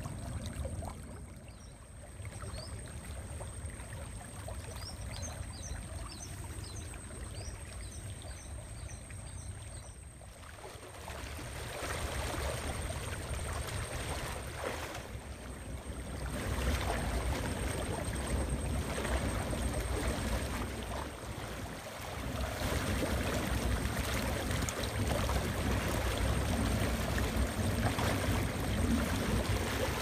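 Shallow, fast-flowing stream rushing and splashing, with the sloshing of legs wading through the water; it grows louder about halfway through.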